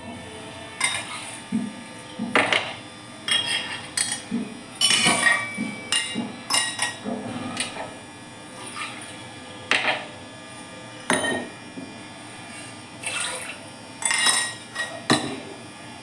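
Kitchen utensils clinking and knocking against a pot, a dozen or so irregular strikes, as ingredients are tipped into the water in it.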